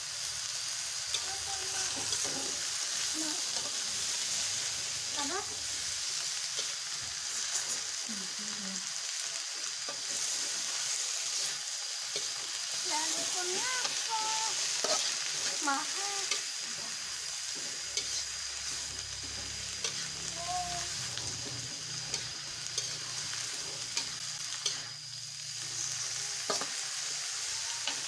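Sliced bamboo shoots and leafy greens sizzling as they are stir-fried in a metal wok, with a steady hiss and a metal spatula scraping and clinking against the pan now and then.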